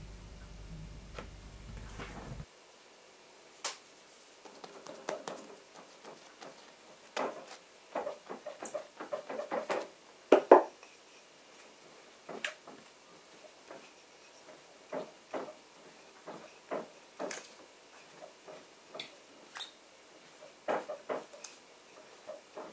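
Hands pressing and rolling out bread dough on a countertop: soft rubbing and scraping with irregular light taps and knocks, the loudest about ten seconds in. A low hum for the first two seconds or so cuts off abruptly.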